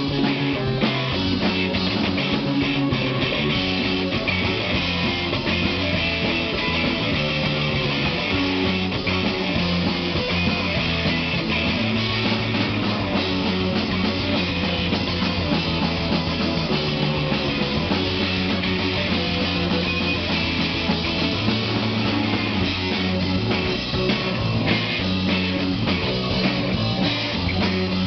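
Rock band playing live: guitar and drum kit, loud and steady throughout.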